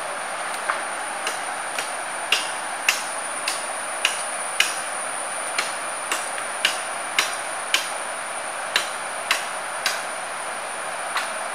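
Sharp snaps and cracks, about two a second with short gaps, from palm-frond leaflets being bent and woven by hand into a mat. Under them run the steady rush of a stream and a steady high-pitched insect drone.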